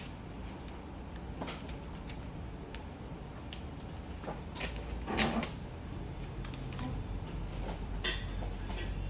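Handling noise from unboxing a phone: scattered light clicks and taps of the box, packaging and handset, with one louder knock about five seconds in, over a steady low hum.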